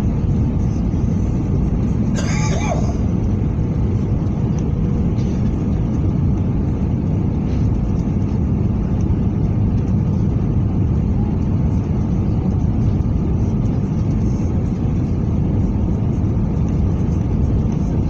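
Steady low rumble inside an airliner cabin on approach, from the jet engines and the air rushing past the fuselage. A brief high voice-like sound cuts through about two seconds in.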